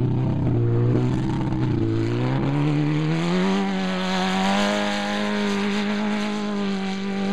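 Off-road desert race vehicle's engine running, its pitch climbing smoothly from about two seconds in as it accelerates, then holding steady at the higher pitch.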